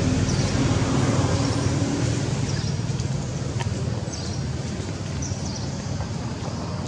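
A low, steady mechanical rumble that slowly fades away, with a few faint, short, high chirps here and there.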